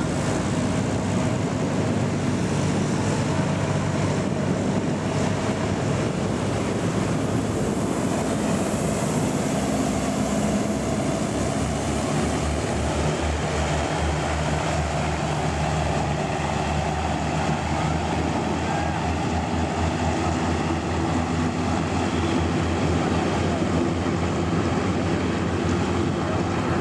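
Griffon 12000TD passenger hovercraft running at close range: a loud, steady drone from its ducted propellers and lift fans, mixed with the hiss of blown spray and wind on the microphone. A low throbbing pulse strengthens through the middle.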